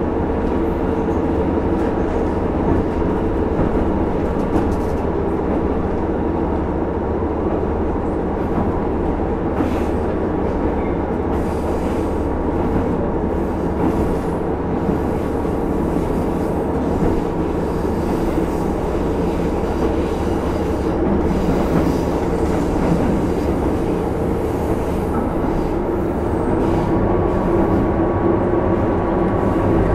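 JR KiHa 75 series diesel railcar (KiHa 75-301) running along the line, heard from on board: a steady diesel drone over wheel-on-rail rumble, with occasional short clicks from the track. The level rises slightly near the end.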